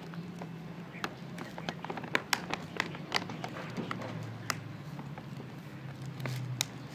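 A cat chewing dry kibble from a clay dish: irregular sharp crunches, several in quick succession a little after two seconds in, over a steady low hum.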